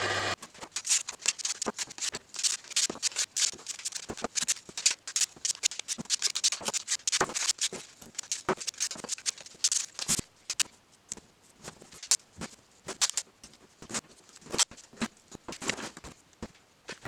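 Small wedge-shaped utile wood segments being handled on a cardboard-covered bench: a quick, irregular run of scratchy rubbing strokes, taps and light clacks of wood, thinning out over the second half.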